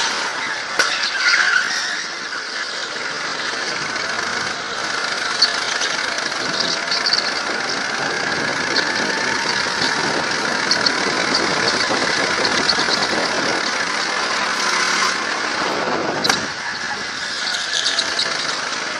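Go-kart engine running at speed while the kart's tyres squeal in short bursts through the corners of a smooth indoor concrete track, heard from a helmet camera. One sharp knock comes near the end.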